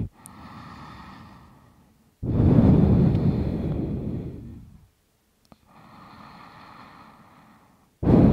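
A person taking two slow, deep breaths during yoga. Each breath is a soft, airy sound followed by a much louder, longer one that fades away. The second loud one starts near the end.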